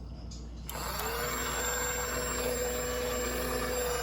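A mini eyelash washing machine switches on less than a second in: its small motor spins up with a brief rising whine, then runs steadily, churning the rinse water.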